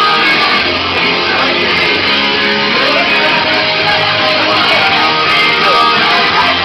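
Rock music with electric guitar, playing steadily at a constant loudness.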